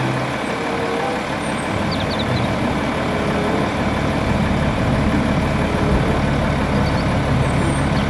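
Heavy multi-axle tipper truck's diesel engine running steadily while its hydraulic ram slowly raises the dump body.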